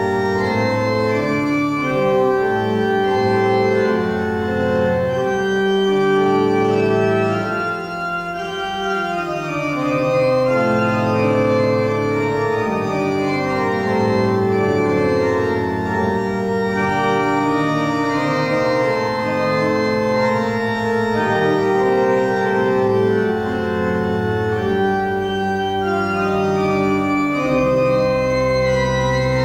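Church organ playing slow, sustained chords, several notes held at once and changing every second or so.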